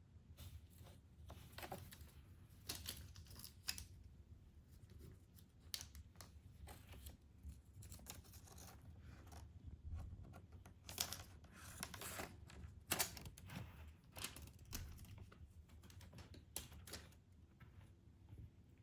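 A kitten chewing and biting at a toy while it plays: faint, irregular clicks, crunches and crinkles, thicker in some stretches than others.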